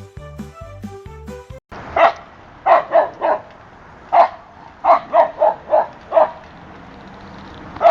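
A dog barking in short, sharp single barks, about ten over four seconds, some in quick pairs and triplets, with one more bark near the end. Backing music plays for the first second and a half before the barking starts.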